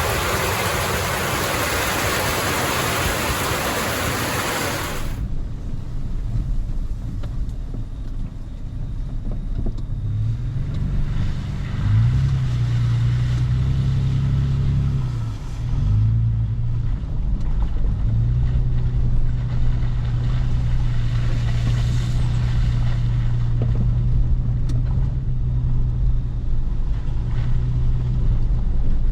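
Heavy wind-driven rain hissing loudly for about five seconds, then cutting off suddenly. After that a low, steady hum and rumble, like an engine running, which shifts in pitch a few times before settling.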